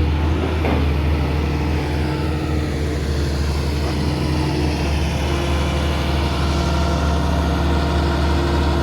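A Hitachi hydraulic excavator's diesel engine runs at a steady, even speed.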